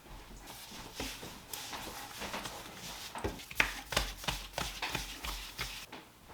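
Kitchenware being handled: a quick, irregular run of light clicks and knocks, the sharpest about halfway through.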